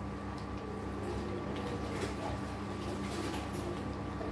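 Spoon stirring chicken and spinach in a steel pot, with a few soft scrapes, over a steady hum that carries a faint high tone.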